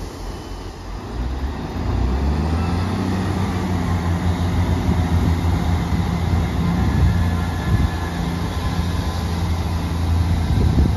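A Class 158 diesel multiple unit pulling away from the platform, its underfloor diesel engines running under power with a steady low drone.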